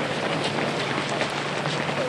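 Footsteps of a large pack of runners on an asphalt road: many overlapping footfalls forming a continuous, even patter.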